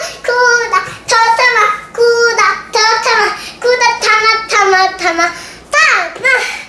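A young girl singing unaccompanied, in short phrases of held notes.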